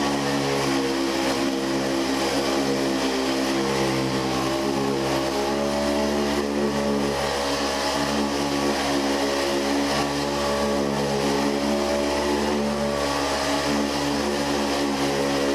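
Electric handheld massager running steadily on the back muscles, a continuous motor hum that wavers slightly in pitch, used to loosen the muscles before a chiropractic adjustment.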